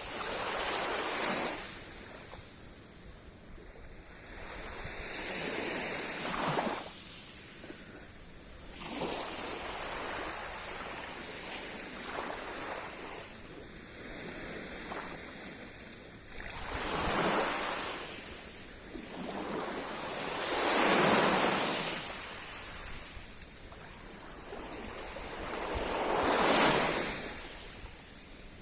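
Sea surf: waves breaking and washing up the shore one after another, each one swelling and fading over a few seconds. There are about six of them, and the last two are the loudest.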